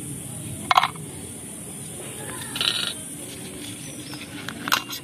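Small clicks and taps of a knife against biscuits and a steel plate as the cream filling is scraped off chocolate sandwich biscuits. A brief, louder sharp sound comes about a second in, and a cluster of clicks comes near the end.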